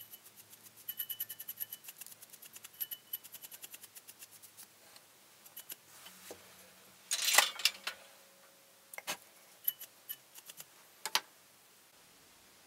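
Brush bristles sweeping over an opened TO-3 transistor can, ticking quickly as they flick loose granules off the silicone gel, then a louder scratchy burst about seven seconds in and a few scattered sharp clicks near the end.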